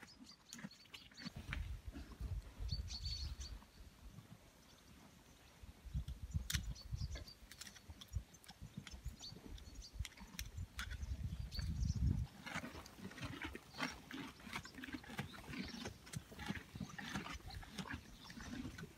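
Horses and cattle eating hay at a feed barrier close by: crisp crunching and rustling of hay, with several bouts of low rumbling noise in the first two-thirds.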